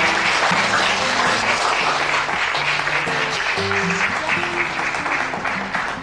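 Audience applauding, many hands clapping, over background music with a steady bass line.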